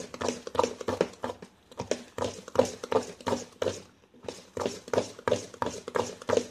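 Risen, fermented idli batter being beaten by hand in a steel vessel: wet slaps in a steady rhythm, about three a second, broken by two short pauses. The beating works the fermented batter so that the idlis come out soft.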